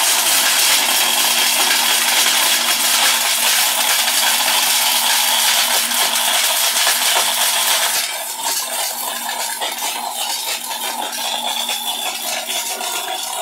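Orpat mixer grinder running flat out, its motor humming steadily under a harsh rattle of hard dried turmeric pieces being smashed against the stainless-steel jar. About eight seconds in, the rattle eases and the sound gets quieter.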